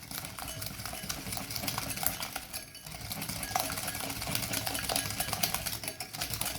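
Eggs, sugar and grated lemon zest being mixed in a bowl: a steady low hum with many quick clicks of the utensil against the bowl, briefly easing off about two and a half seconds in.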